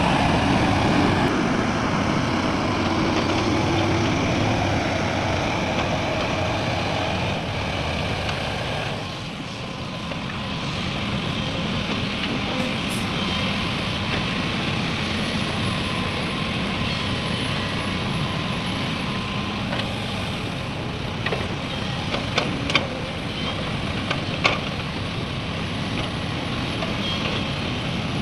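Heavy diesel machinery running steadily, louder for the first nine seconds and then settling lower, with a few sharp knocks near the end.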